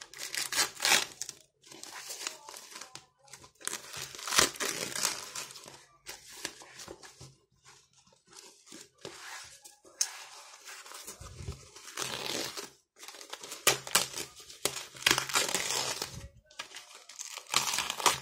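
Thin plastic packaging crinkling and rustling in irregular bursts as hands pull open a plastic bag and its wrapping.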